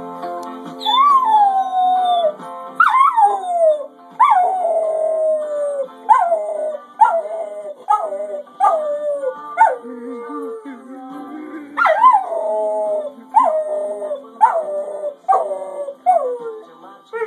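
A dog howling along to music, about a dozen howls, each sliding down in pitch; the first few are long and the later ones come quicker and shorter.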